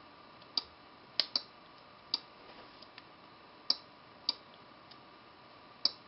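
Small PCB relay on an infrared relay module clicking on and off as TV remote buttons are pressed and released: about seven sharp, irregularly spaced clicks.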